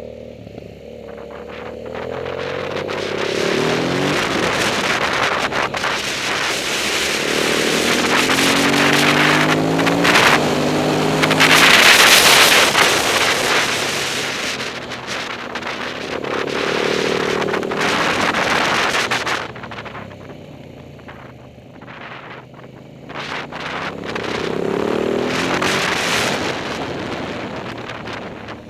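Onboard sound of an Aprilia motorcycle engine on a track lap. The revs climb through the gears and drop away for the corners, several times over. Heavy wind noise on the microphone swells with speed and is loudest about twelve seconds in, and the engine eases off around twenty seconds in before pulling again.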